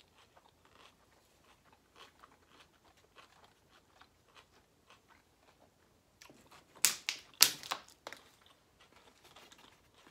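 Close-miked eating sounds: soft, scattered mouth clicks from a person chewing, then, about six seconds in, a loud run of sharp crackles lasting a couple of seconds.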